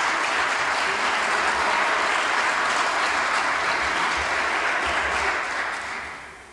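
Members of parliament applauding, a steady crowd of clapping hands that dies away near the end.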